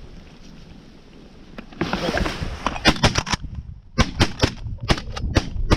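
Several shotguns firing a rapid, overlapping volley of shots at passing ducks, starting about three seconds in. A short rush of noise comes just before the first shot.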